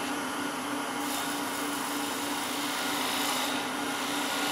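Wood lathe running while a spindle gouge cuts the face of a small spinning wood blank, the flat shoulder for the chuck jaws: a steady hiss of the cut over a steady hum. The hiss grows brighter about a second in and again near the end.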